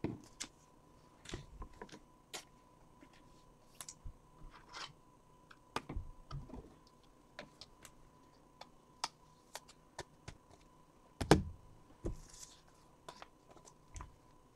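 Scattered light clicks and taps from handling things at a desk, with one louder knock about eleven seconds in, over a faint steady electronic hum.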